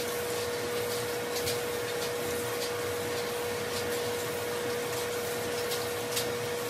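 Bathroom sink faucet running steadily into the basin, with a few small splashes as hands scoop water up to the face, over a steady hum.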